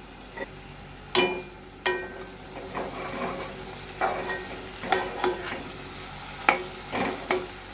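Onion, carrot and garlic frying in hot oil in a pan, stirred with a spoon that knocks against the pan about seven times, some knocks ringing briefly.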